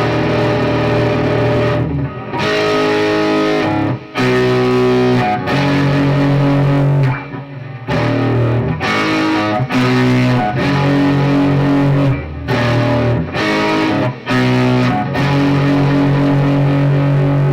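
Electric guitar with Fleor Alnico 5 two-wire humbucker pickups, played as held chords that change every second or two, with short gaps between changes.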